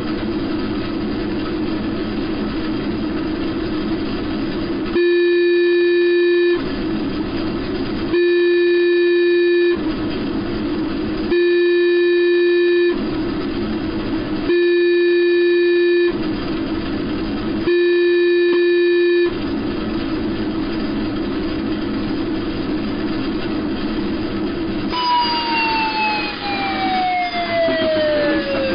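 Simulated shortwave numbers-station signal made in Audacity: a steady humming noise bed under five long, identical electronic beeps about three seconds apart. Near the end a single tone slides steadily downward in pitch.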